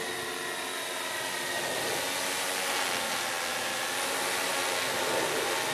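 Tarot X6 hexacopter's six motors and 18-inch propellers humming steadily in a hover, a faint whine over a rushing noise, slowly growing louder as the drone comes closer.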